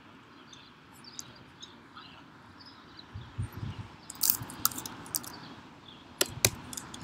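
Computer keys and clicks tapping in two short clusters, about four seconds in and again near the end, as a number is typed into a form. A soft low thumping comes a little earlier, over a faint room background.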